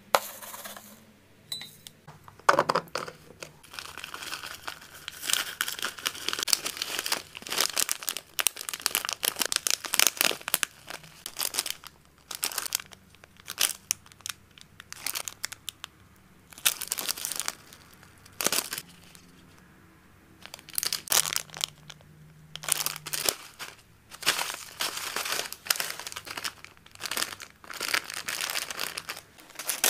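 Clear plastic bags crinkling as they are handled: small heat-sealed pouches and a zip-lock bag of dried hamster snacks, in irregular bursts with short pauses.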